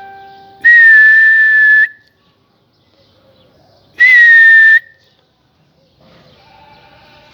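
A person whistling twice, loud and shrill at a steady pitch: one whistle just over a second long, then a shorter one about two seconds later. It is a pigeon keeper's whistle to put the flock into the air.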